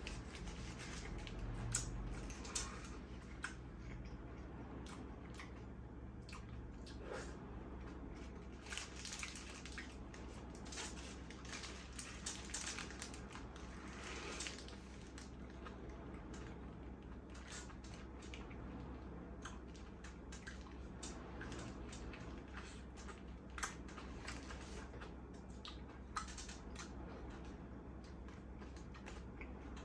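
A person eating a spicy egg burger close to the microphone: biting and chewing, with many short wet mouth clicks, over a steady low hum.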